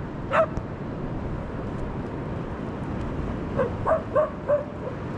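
Dogs barking in short, high yaps: one about half a second in, then a quick run of four about three and a half seconds in, excited barking from dogs chasing a seagull. A steady low rush of wind runs underneath.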